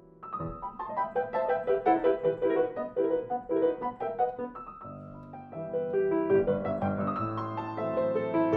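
Grand piano played solo: quick runs of notes begin just after a brief hush, and about five seconds in fuller low chords come in under the runs.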